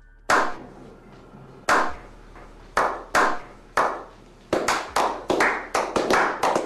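A slow handclap that builds: single sharp claps about a second apart, then from about four and a half seconds in several people join, clapping faster and overlapping.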